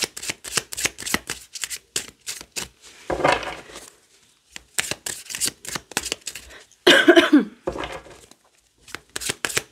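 An oracle card deck being shuffled by hand, with runs of quick crisp card clicks and short pauses between them. About two-thirds of the way through, a brief murmur of a voice falls in pitch.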